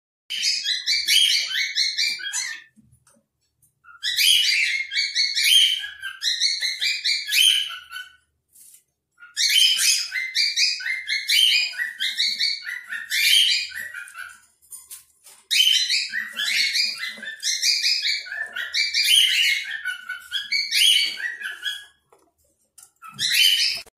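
Cockatiel chirping in long runs of rapid, high chirps, broken by short pauses.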